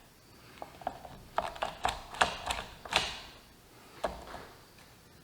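Scattered light clicks and ticks of hand work on a motorcycle's handlebar controls, as small parts such as the throttle cable and a zip tie are handled. The sharpest click comes about three seconds in.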